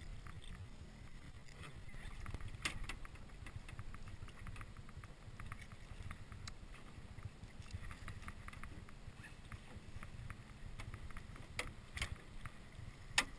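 Wind rumbling on the microphone and water moving against a small drifting boat, with scattered light clicks and a few sharp knocks, the loudest near the end.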